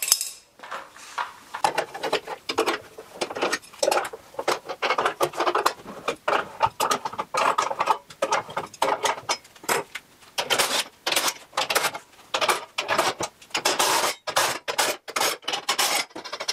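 Unistrut panel clamps being loosened and taken apart: hex nuts worked off threaded bolts and steel strut channels shifted, making a rapid, uneven run of metal clicks, scrapes and clanks.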